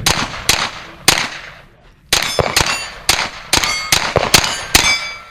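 .22 rimfire shots fired at steel plates, each crack followed by the ring of the struck plate. Three shots come in the first second, then a short pause, then a quick string of about ten shots and rings from about two seconds in.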